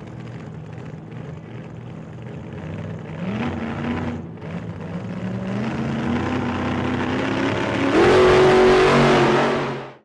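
Car engine accelerating through the gears: its pitch climbs, drops back and climbs again, getting steadily louder. It is loudest in the last two seconds, then cuts off suddenly.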